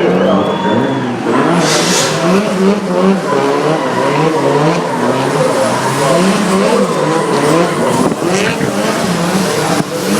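Drift car engine revving up and down over and over, its pitch climbing and dropping about once a second, with short bursts of tyre squeal about two seconds in and again near the end.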